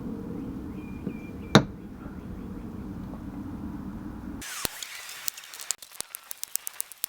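Hot-staple plastic welder humming while it heats a staple into a cracked plastic bumper, with one sharp click about a second and a half in. The hum stops suddenly after about four seconds, leaving a string of irregular light clicks.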